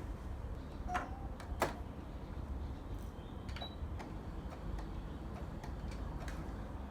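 Scattered light clicks and ticks from handling work at a sewing machine, over a low steady hum.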